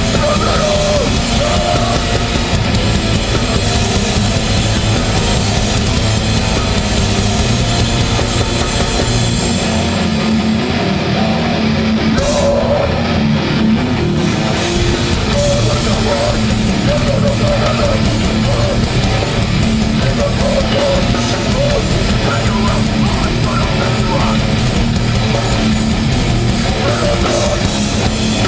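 Hardcore punk band playing live: loud distorted guitars and drum kit, with the cymbals dropping out for a few seconds partway through.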